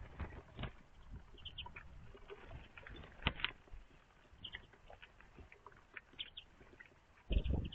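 Small songbirds, among them European greenfinches, busy at a seed feeder: scattered pecking taps and scrabbling, with short high chirps now and then, and a heavier low thump near the end.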